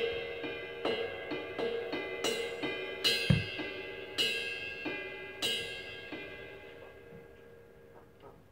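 A jazz drum kit opening a big band tune: the cymbals are struck about eight times at an uneven pace and left ringing, slowly dying away. A single bass drum kick lands about three seconds in.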